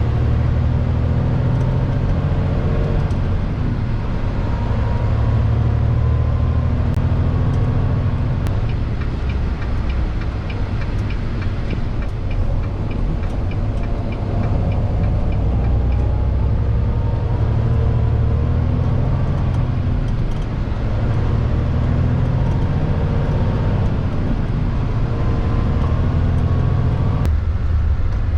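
Diesel engine of a fully loaded grain semi-truck, heard from inside the cab, pulling hard. Its pitch climbs slowly several times and drops back between the climbs as the gears change. A regular ticking, about two or three a second, runs for several seconds in the middle.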